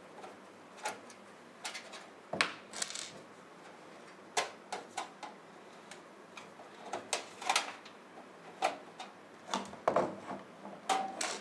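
Screwdriver backing out the power-supply mounting screws at the back of a metal desktop PC case: irregular metallic clicks and scrapes, about a dozen, in small clusters.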